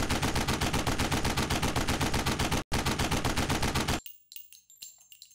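Rapid automatic gunfire, about seven shots a second, in a long burst. It breaks off for an instant about two and a half seconds in, resumes, and stops about four seconds in. A few faint metallic pings and clinks follow.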